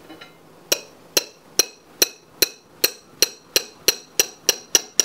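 Knife slicing a banana on a plate: a regular run of sharp clinks as the blade strikes the plate, each with a short high ring. They start under a second in and quicken from about two to about four a second.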